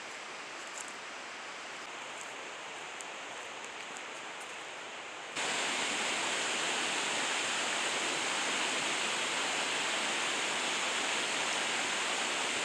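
Steady rush of a fast mountain creek running over rocks, fainter at first and then suddenly louder about five seconds in.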